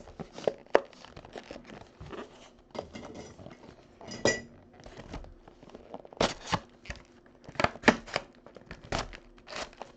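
Hands opening and handling a cardboard trading-card box and its wrapped packs: a string of irregular taps, clicks and crinkles, loudest a little past the middle, with one brief ringing clink about four seconds in.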